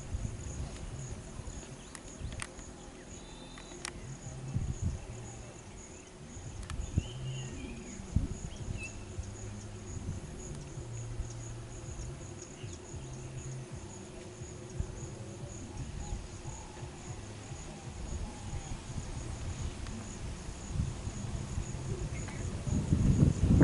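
Insects chirring steadily in one high, evenly pulsing note, over a low rumble with a few faint clicks.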